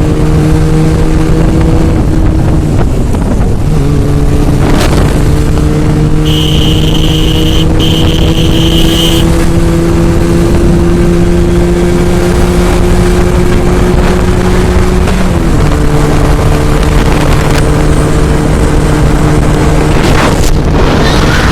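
Regal Raptor 250cc motorcycle engine running at speed under heavy wind noise on the microphone. Its pitch climbs slowly and drops twice, about three seconds in and again near fifteen seconds. A horn sounds for about three seconds, starting about six seconds in.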